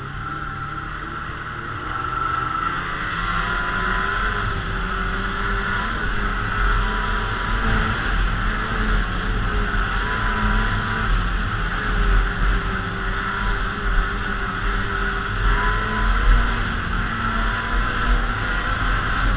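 Polaris snowmobile engine running under way along a trail, getting a little louder about two seconds in and then holding a steady pitch.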